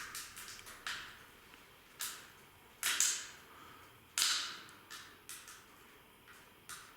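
A series of irregularly spaced sharp clicks and knocks, about ten in all, each dying away quickly.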